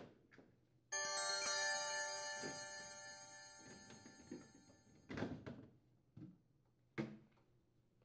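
A bright, bell-like chime sounds about a second in and rings out slowly over three or four seconds; it is the alert tone for the on-screen 'sharp edges' caution icon. A few faint clunks follow as the sheet-metal evaporator cover panel is handled.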